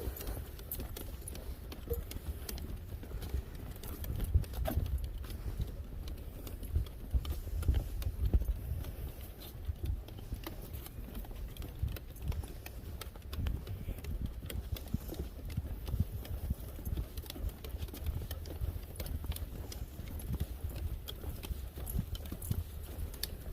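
Footsteps of people and dogs on a footbridge and its steps: a steady run of irregular knocks and taps as they walk across.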